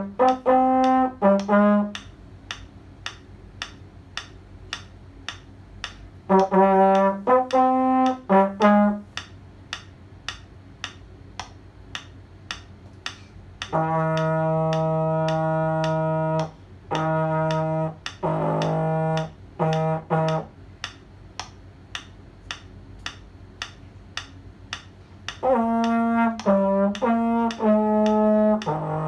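Trombone played by a child: short phrases of a few notes with pauses between, then a run of long held low notes, then another phrase ending in a held note. A steady tick about twice a second runs under the playing and through the pauses.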